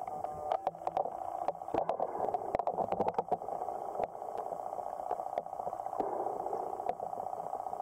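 Underwater sound picked up by a camera submerged in a lake: a steady muffled hiss with irregular sharp clicks and taps. The clicks are dense in the first few seconds and sparser later.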